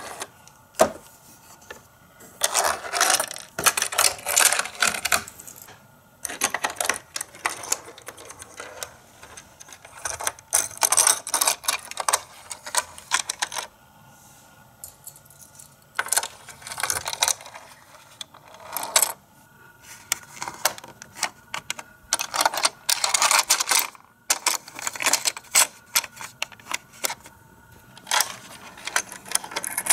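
Plastic toy playset being handled: bursts of hard clicking and clattering as small die-cast Micro Machines cars are set down and pushed about and plastic parts are knocked and moved, with short pauses between bursts.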